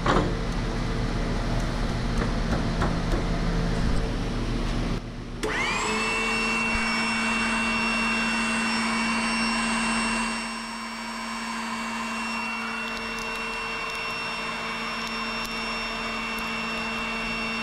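Hydraulic power unit of a stator wrecker blade press running with a steady machine whine. After a short break about five seconds in, it spins up again, its pitch rising for a moment and then holding steady, and it drops a little in level about halfway through.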